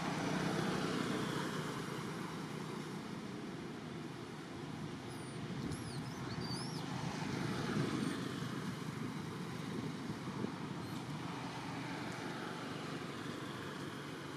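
Road traffic going past: a steady noise of vehicles on the road, swelling as they pass, loudest near the start and again about eight seconds in. A few brief high chirps come in about halfway through.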